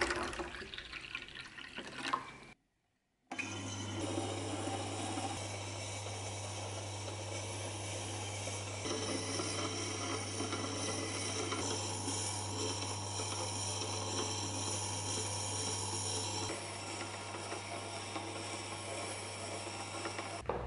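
Water poured from a plastic bottle splashes into the trough of a Scheppach wet stone grinder. After a short break, the grinder's motor runs with a steady low hum as its whetstone turns through the water.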